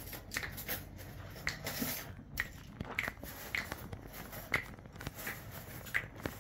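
Plastic push-along ride-on toy car creaking as it is pushed: short clicks, each with a brief squeak, coming irregularly about twice a second.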